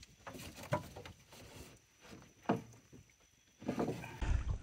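Hoop net hauled up by its rope beside a metal boat: water splashing and dripping off the mesh, with scattered knocks. Near the end comes a clatter with a low thud as the net's hoops come against the boat's side.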